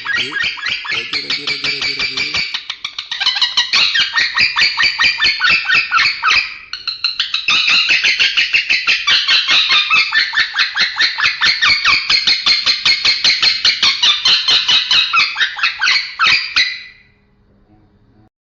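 Male lovebird singing a long, rapid chattering song of fast shrill ticks. It pauses briefly twice and stops about a second before the end.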